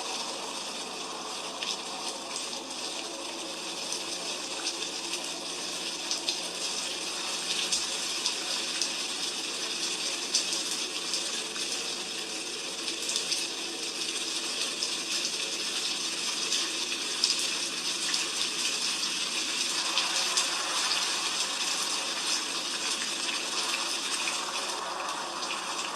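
Steady heavy rain: a dense hiss with many small drop ticks through it.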